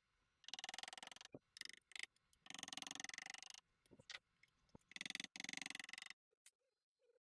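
Three bursts of rapid, fine mechanical clicking, each about a second long, from hand-tool work on a milling machine head.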